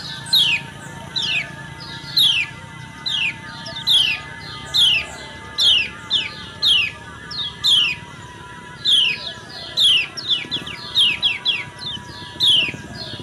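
Female kecial kuning white-eye giving a string of short, sharp, downward-slurred 'ciak' calls, about one or two a second, with a quick run of several together about two-thirds of the way through. A faint steady hum lies underneath.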